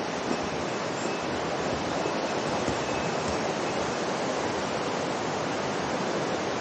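Upper Ōi River, a mountain river, rushing in a steady, even roar of water, with a couple of faint knocks over it.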